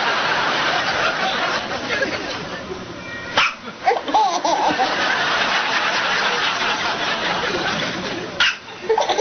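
Continuous laughter, broken by two sharp hiccups from an 8-month-old baby, about three and a half and eight and a half seconds in.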